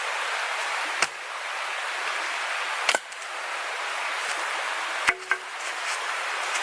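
A blade chopping into wood, four sharp chops: one about a second in, one near three seconds, and two in quick succession around five seconds, over a steady background hiss.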